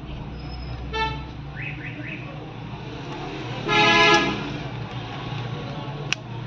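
Vehicle horn sounding: a short toot about a second in, then a longer, louder blast about four seconds in, over steady traffic hum.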